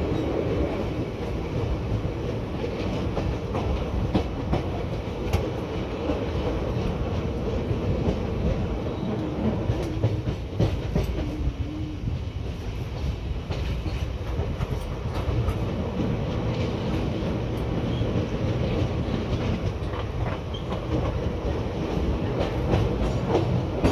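Express passenger train running at speed, heard from aboard a coach: a steady rumble and rush of noise with irregular clickety-clack of the wheels over rail joints.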